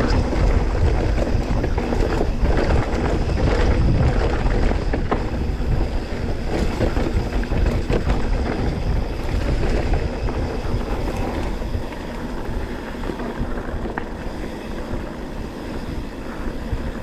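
Wind buffeting the microphone over the rattle and tyre noise of a mountain bike riding a dirt trail, with sharp knocks from bumps. It eases off somewhat in the last few seconds.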